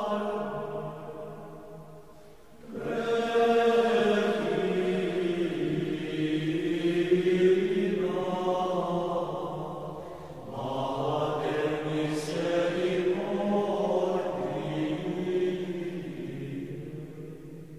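Slow sung plainchant in long held phrases, with a pause for breath about two and a half seconds in and another about ten seconds in.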